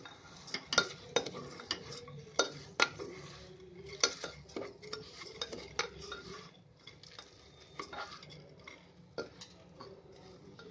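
Black spatula stirring raw basmati rice and fried vegetables in a pressure cooker, with irregular scrapes and knocks against the pot's sides and rim.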